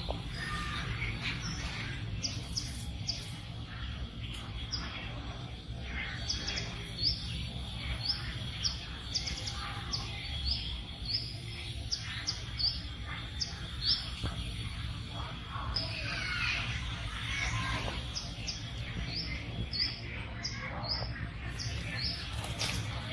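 Small birds chirping: many short, high chirps repeating throughout, over a steady low background rumble.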